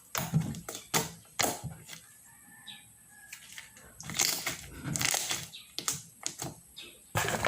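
Handmade glitter slime being squished and poked by hand, giving irregular sticky clicks and wet popping squelches in bursts, with a quieter stretch in the middle.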